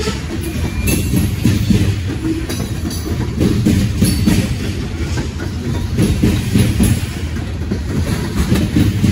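Covered hopper cars of a freight train rolling past close by. A steady low rumble of steel wheels on the rail, with repeated clacks as the wheels cross rail joints.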